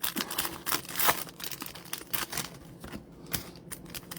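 Foil trading-card pack wrappers crinkling and cards rustling as they are handled, in short irregular bursts.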